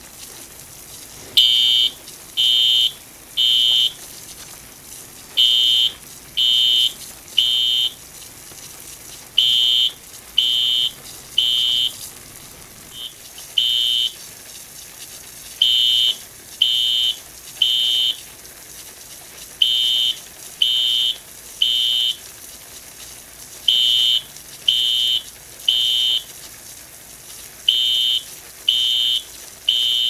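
Fire alarm horn sounding the temporal-three evacuation pattern: groups of three high beeps repeating about every four seconds, starting about a second and a half in. It is set off by the sprinkler system's waterflow alarm.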